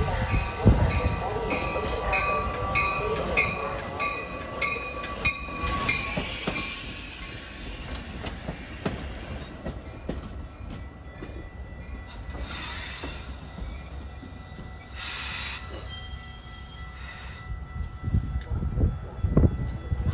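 Metra bilevel commuter train rolling into the platform and braking to a stop, its wheels and brakes squealing. A ringing repeats about twice a second for the first six seconds, and bursts of air hiss follow as the train slows.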